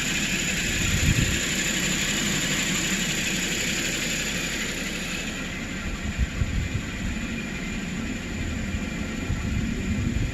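2010 Toyota Corolla's four-cylinder engine idling with a steady low rumble and a few uneven low thumps. A hiss over it fades out about halfway through.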